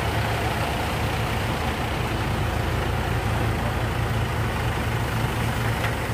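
Diesel tractor engine running steadily, a low even hum.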